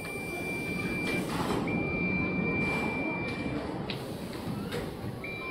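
High-pitched electronic beep repeating, each steady tone held for about two seconds with a pause of a second or two between, over steady background noise.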